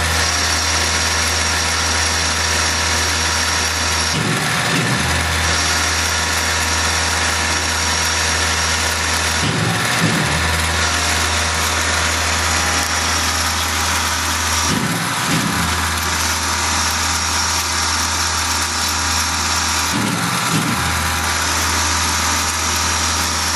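Tormach PCNC 1100 mill with the Duality lathe attachment running a turning program. The spindle gives a steady drone with a high whine, broken about every five seconds by a short rising-and-falling whir as the roughing passes on a concave radius repeat.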